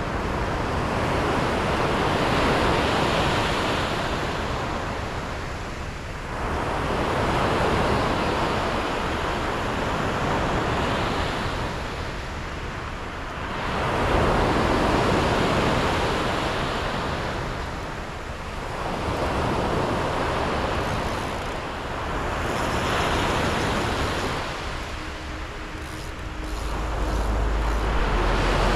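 Sea waves breaking on the shore, the surf swelling and ebbing in slow surges every four to six seconds. A low rumble comes in near the end.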